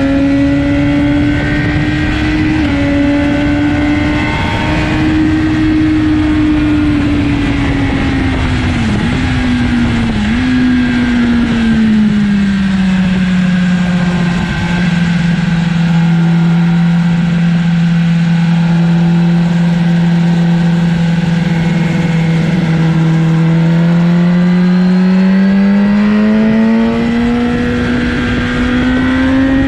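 BMW sport motorcycle's engine at speed on a race track, with a rush of wind noise. The engine note dips briefly twice about nine and ten seconds in, drops and holds a lower steady pitch for about ten seconds, then rises again as the bike accelerates.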